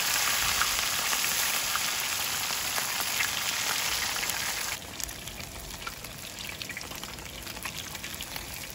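Whole fish deep-frying in a pot of hot oil: a steady, hissing sizzle with scattered small crackles. About five seconds in it drops abruptly to a quieter sizzle.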